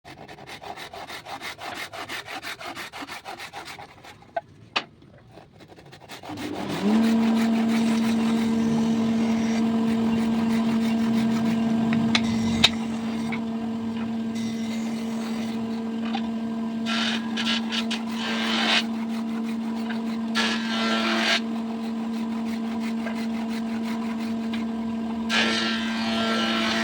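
Rhythmic hand strokes on wood, then an electric woodworking power tool spins up about six seconds in and runs steadily, growing louder and rougher several times as it bites into the wood.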